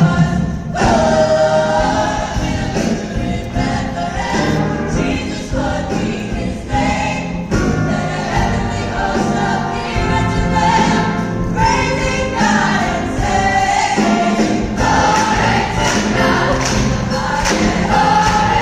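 A choir singing a Christmas piece, with music accompanying it.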